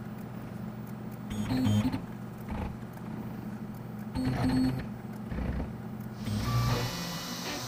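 Tormach PCNC 770 CNC mill making a steady low mechanical hum with irregular whirring bursts from its machinery. A steady hiss of air starts about six seconds in.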